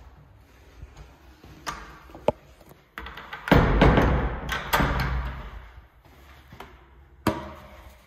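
Toilet-stall door lock being worked by hand: clicks and knocks, with a loud rattling, rubbing stretch in the middle and a sharp click near the end.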